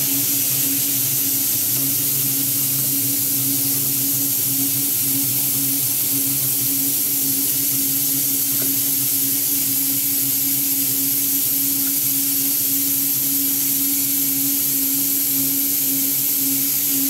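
Compressed-air blast hissing steadily from a nozzle aimed at the work to blow the chips away. Under it, the steady hum of a metal lathe running during a knurling pass.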